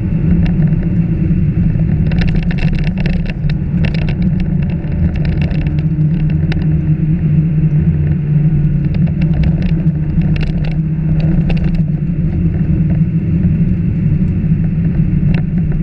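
Car driving fast on a gravel road, heard from inside the cabin: a steady engine drone with clusters of sharp clicks from gravel and stones hitting the underbody.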